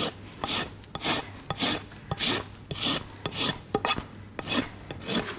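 Coarse side of a steel hoof rasp filing a pony's hoof, in about nine even scraping strokes at roughly two a second with small clicks between them. It is taking a good amount of horn off a high side to level the hoof.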